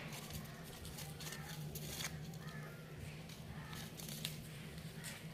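Two puppies play-fighting: scuffling with scattered small clicks and a few faint squeaky yips, over a steady low hum.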